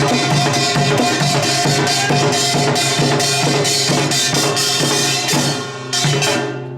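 Korean samulnori percussion ensemble (kkwaenggwari small gong, jing gong, janggu and buk drums) playing a fast, dense rhythm. It comes to a closing stroke near the end that is left ringing out.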